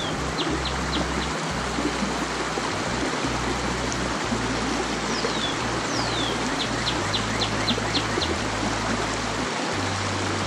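Steady rush of water running over rocks below a spillway. A bird sings twice over it, each time a falling whistle followed by a quick run of five or six short high notes.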